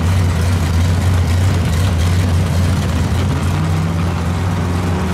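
Pontiac Firebird drag car's engine idling with a loud, steady low rumble; a second, higher steady tone joins about three and a half seconds in.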